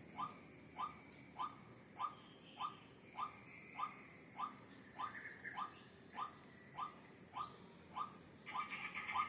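White-breasted waterhen calling: a steady, monotonous series of short 'kwak' notes, about one every 0.6 seconds. Near the end a second run of quicker, overlapping calls joins in.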